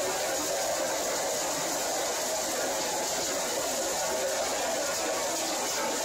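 Small-scale scrap line running: belt conveyor and overhead cross-belt magnet carrying crushed doorknob pieces fed from a hammer mill, making a steady, even mechanical noise with no distinct knocks.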